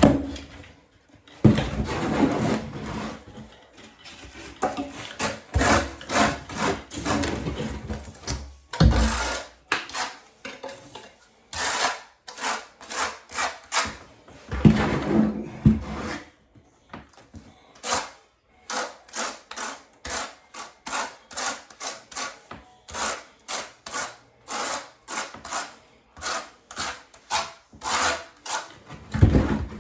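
A hand tool scraping against tile and thinset mortar in repeated strokes: longer, irregular strokes at first, then short, quick strokes at about two a second from just past the middle.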